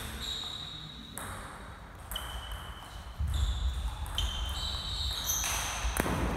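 Table tennis rally: the ball clicking off the bats and the table back and forth, about one hit every two-thirds of a second from about two seconds in. Low thudding runs underneath from about three seconds in.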